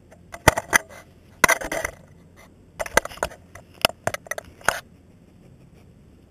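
German Shepherd dog biting and licking at an ice block frozen around a toy ball in plastic: irregular sharp crunches and clicks of teeth on ice and plastic, with a longer scraping rustle about a second and a half in.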